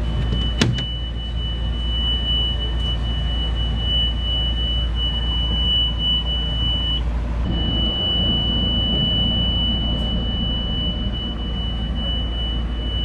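Hydraulic passerelle extending from a motor yacht's stern: its motor runs with a steady low rumble and a continuous high tone, which breaks off briefly about seven seconds in and then resumes. A sharp click sounds just as it starts.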